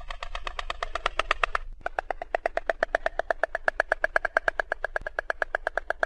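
Stork bill-clattering: a rapid, even rattle of about a dozen claps a second, breaking off briefly about two seconds in and then starting again.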